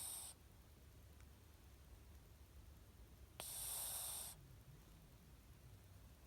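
A sleeping cat snoring like a person: one breathy snore ends just after the start, and another lasting about a second comes about three and a half seconds in, one roughly every four seconds.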